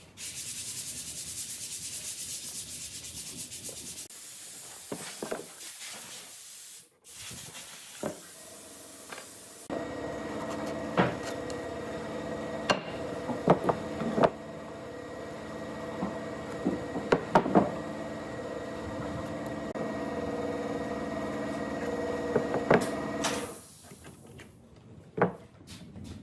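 Wood being sanded. First a bright, even hiss; then, after a brief break, a steadier sanding sound with a constant hum and scattered knocks, which stops near the end.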